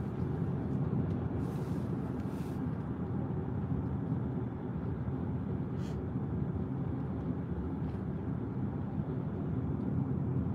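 Steady road and engine noise inside a moving car's cabin, a low even rumble.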